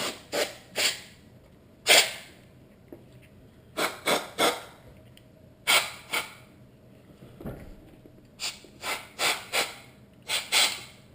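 Headlight projector parts being cleaned by hand: about fifteen short, noisy bursts at irregular intervals, some in quick runs of two or three.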